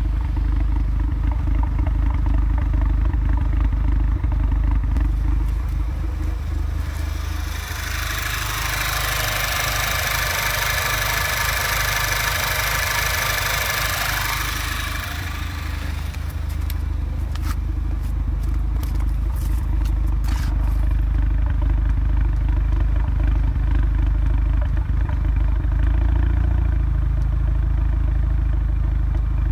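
Audi A3 2.0 TFSI turbocharged four-cylinder engine, stage 2 tuned, idling roughly. The check-engine light reports misfires, and a new PCV valve has not cured them. A loud hiss joins for several seconds in the middle, and a few sharp clicks follow.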